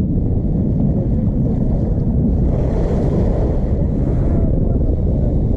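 Wind buffeting the microphone outdoors: a loud, steady low rumble, with a fainter hiss swelling briefly about halfway through.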